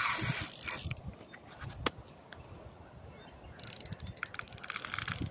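Fishing reel being cranked, its gears ticking rapidly, starting a little past halfway through. A short rush of noise at the very start.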